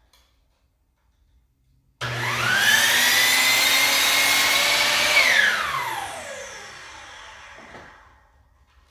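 Electric miter saw motor starting up with a quickly rising whine about two seconds in, running steadily for about three seconds, then winding down in pitch and fading as the blade coasts to a stop.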